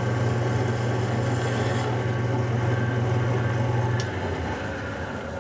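Wood lathe running with a steady motor hum, with a high hiss over it for the first two seconds. About four seconds in there is a click and the hum drops away as the lathe is switched off and winds down.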